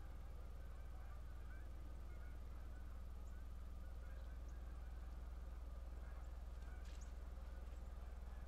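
A steady low hum, with faint, scattered short bird calls over it.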